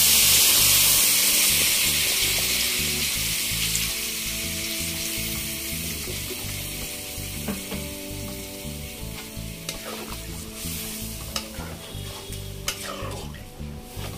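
Hot oil and spice paste in a kadai sizzle loudly as water hits it. The hiss fades steadily as the water takes the heat, and a few light knocks come in the second half.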